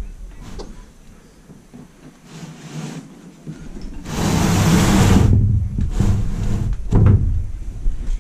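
Flat-pack particleboard bookcase panels being handled: a loud scraping slide about four seconds in, lasting a second or so, then knocks of the boards.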